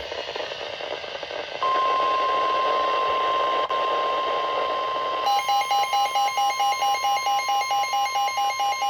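Weather radio hiss, then the steady high Weather Radio warning alarm tone starting about a second and a half in, the signal that a warning is about to be broadcast. About five seconds in, a rapid electronic beeping alarm joins it, about five beeps a second.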